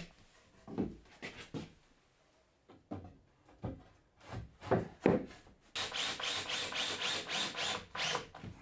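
Pine framing timbers knocking and scraping as they are handled and set into a wooden door frame on a plywood floor: a scatter of separate knocks and rubs, then from about six seconds in a denser run of quick clicking and rubbing.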